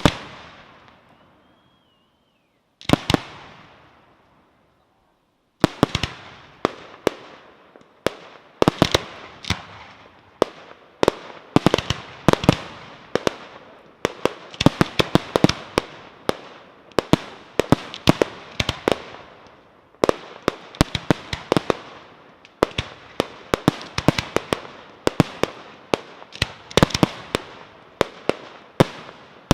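Aerial fireworks going off. There is a single bang, then another about three seconds in. From about five seconds on, a dense barrage of rapid bangs follows, each with a trailing echo.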